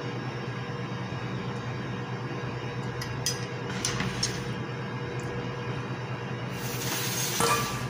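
Steady hum of kitchen machinery with a few light clinks in the middle, then a louder scraping noise near the end as a glass bowl is slid across the stainless-steel counter.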